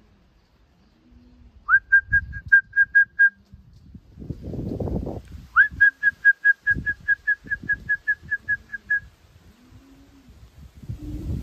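Two runs of quick whistled notes at one pitch, about five a second, each opening with a short upward slide. A short run comes about two seconds in and a longer one from about halfway. Low pigeon cooing sounds faintly in between.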